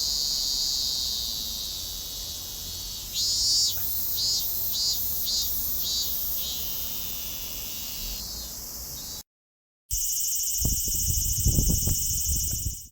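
Robust cicada (minminzemi, Hyalessa maculaticollis) singing: a high, steady buzz with a run of pulsing notes a few seconds in, fading slightly. It cuts off after about nine seconds, and after a brief silence a second stretch of high buzzing starts, with low thumps and rumble beneath it.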